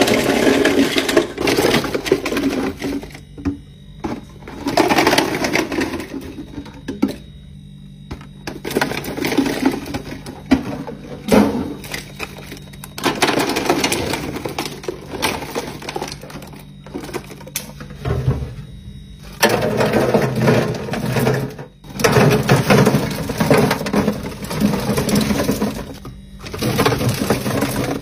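Many small ball-shaped soft candies pouring out of a plastic jar and clattering into a refrigerator's clear plastic drawer, in several bursts with short pauses between.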